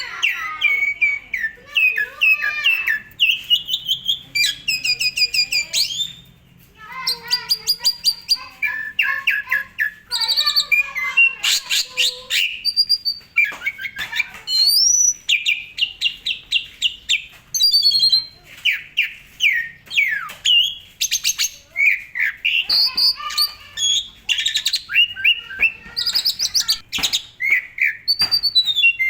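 Asian pied starling (jalak suren) singing a long, varied song of whistles, rapid rattling trills and chattering notes, with a brief pause about six seconds in.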